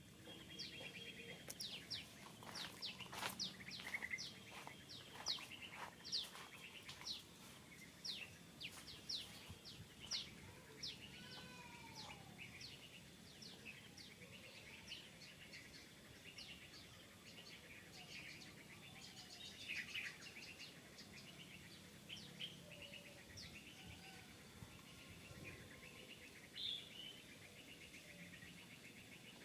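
Birds chirping: a fast run of short, high, downward-sweeping chirps, dense for the first ten seconds or so and thinning out after that, over faint outdoor background noise.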